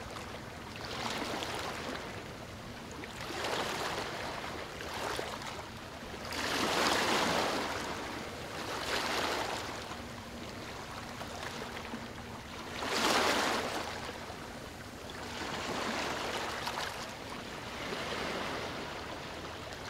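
Ocean waves washing in: the surf hiss swells and fades every couple of seconds, with two bigger waves about seven and thirteen seconds in.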